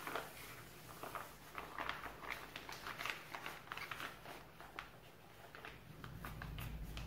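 A piping bag full of pastry cream crinkling and rustling in the hands as it is twisted and squeezed to push the cream down toward the tip, in quick irregular crackles.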